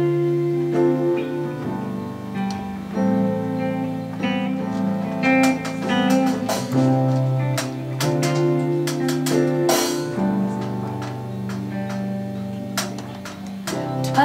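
Small band playing an instrumental passage: acoustic guitar over held keyboard chords, with scattered drum and cymbal hits.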